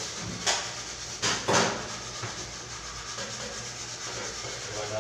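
Hands rubbing and scraping at a stainless-steel kitchen sink, with a few short, louder scrapes about half a second and a second and a half in, over a steady low hum.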